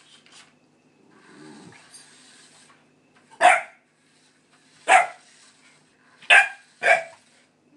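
Pit bull puppy barking: four short, sharp barks spread over the second half, the last two in quick succession.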